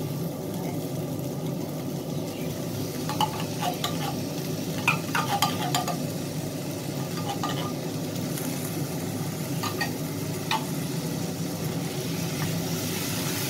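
Canned corned beef being scooped with a spoon out of a tin into a stainless steel pan of browning cubed potatoes, a run of metal clinks and scrapes between about three and six seconds in and a few more near ten seconds. Underneath is a steady low hum and a light frying sizzle, and near the end a wooden spatula stirs the beef and potatoes in the pan.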